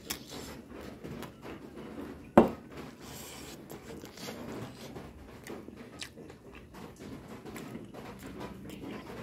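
Close chewing of crispy fried siomai, with small irregular crunches and clicks, and one sharp knock about two and a half seconds in.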